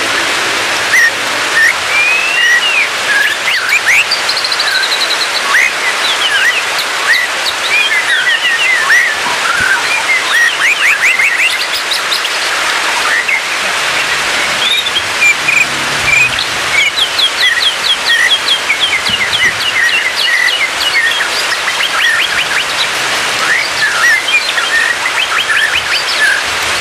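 White-rumped shama (murai batu) singing: a continuous, varied song of clear whistles, trills and quick runs of repeated notes, over a steady hiss.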